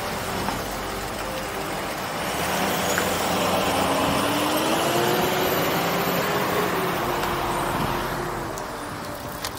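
A motor vehicle passing the cyclists on the road: its sound swells over a couple of seconds, holds, then fades near the end, over a steady rush of road and wind noise.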